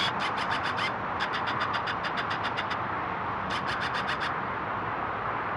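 Steady hum of distant traffic, with three runs of rapid, fine, evenly spaced clicking laid over it.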